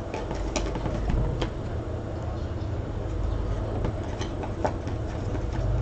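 Football trading cards being flipped and slid through by hand: scattered light clicks and rustles of card stock over a steady low hum.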